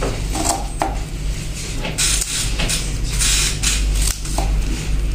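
Scissors snipping repeatedly through folded paper, cutting it into strips, the snips coming in short runs, over a steady low hum.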